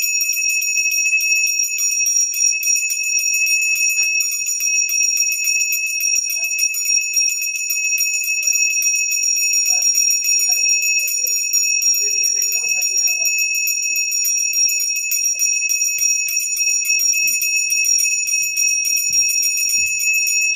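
Brass puja hand bell (ghanta) rung continuously during aarti: a steady high ringing kept up by rapid, even clapper strikes.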